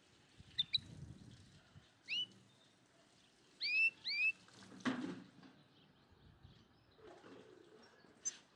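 A small bird chirps about six times in quick upward-sweeping notes, singly and in pairs, over the first half. A single soft knock comes just before the middle.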